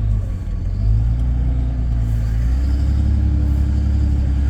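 Vehicle engine running under load, heard from inside the cab: a steady low drone whose pitch rises a little about two and a half seconds in and then holds.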